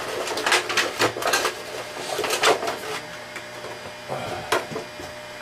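Rustling and crinkling of packaging as cables and small parts are taken out of a box, busiest in the first three seconds, then a few lighter clicks and knocks.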